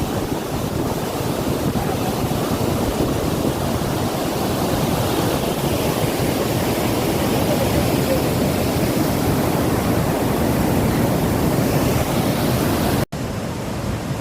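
Loud, steady rush of water pouring through the open spillway gates of a dam. A brief dropout near the end is followed by the same rush, somewhat quieter.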